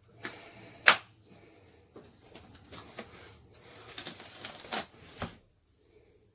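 Metal door-lock hardware being handled and fitted: a sharp click about a second in, then a run of lighter clicks and rattles that stops about five seconds in.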